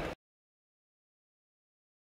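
Silence: a mix of music and voices cuts off abruptly just after the start, leaving no sound at all.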